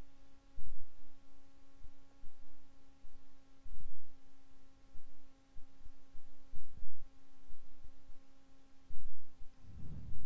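A steady hum made of several fixed tones, with irregular soft low thuds, the strongest just before the end.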